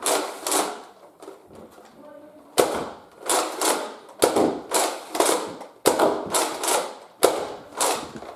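About a dozen sharp clacks at uneven intervals, each ringing out briefly.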